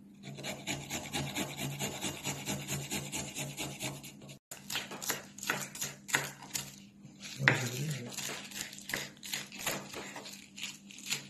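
Rapid, even rasping strokes of food being grated on a flat metal hand grater. About four seconds in this gives way to a kitchen knife chopping spinach on a wooden cutting board, in irregular sharp knocks.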